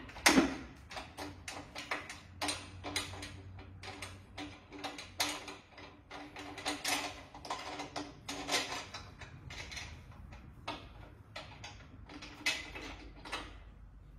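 Irregular metallic clicks and clunks as a Toyota R154 transmission is jiggled onto the guide pins of a Subaru engine, with one loud knock right at the start.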